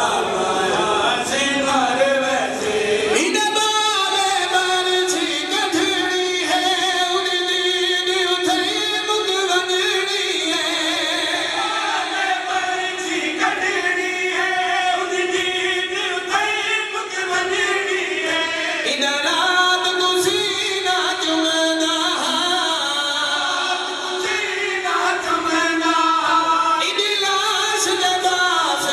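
A man sings a noha, a mourning lament, into a microphone, amplified over a PA system, with a group of men chanting along.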